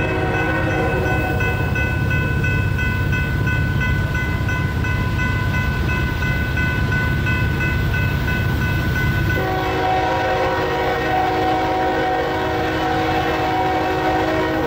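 Freight train's diesel locomotives rumbling while a horn sounds at length. Its chord shifts to lower tones about nine seconds in.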